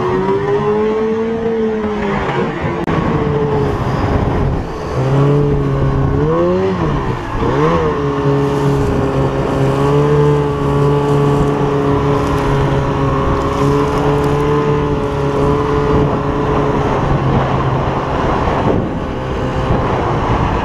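Two-stroke snowmobile engine running under throttle across snow, its pitch rising and dipping a few times and then holding steady for several seconds before easing off near the end. Wind noise on the microphone.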